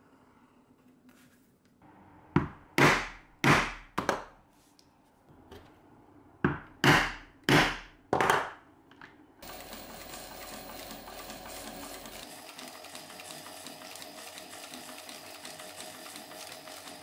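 A hole punch struck through thick leather: two groups of four sharp blows, each with a short ringing tail. Then an industrial sewing machine runs steadily, stitching the leather.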